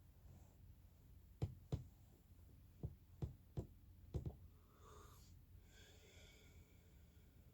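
Near silence broken by six soft knocks or clicks over about three seconds, then a faint, brief high-pitched sound.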